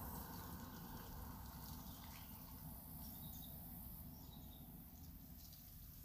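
Faint outdoor background: a low vehicle rumble slowly fading away, with a few faint high bird chirps about three seconds in.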